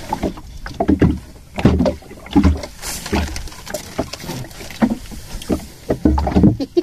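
Irregular knocks and thumps on a small fishing boat, with a faint wash of water and wind behind them.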